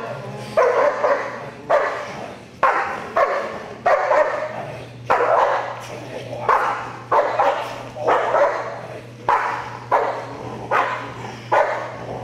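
A protection-trained dog barking repeatedly at the agitator, about one bark a second, each bark sharp at the start and fading away. The barks are recorded close-up by a camera on the dog's own collar.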